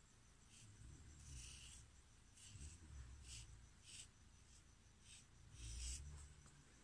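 Felt-tip marker rubbing across a person's skin in short scratchy strokes, about eight of them, the loudest a little before the end.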